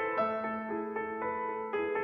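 Background piano music: a gentle melody of struck notes changing about twice a second over a long held low note.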